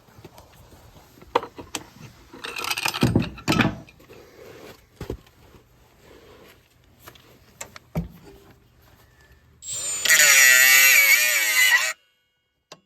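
Scattered clanks and knocks of tools and metal parts being handled, with a louder rattling scrape about three seconds in. Near the end, a loud wavering pitched sound lasts about two seconds and stops suddenly.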